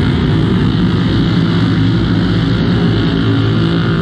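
Many racing ATV engines running at once: a loud, steady drone of several overlapping engine pitches, each holding fairly level.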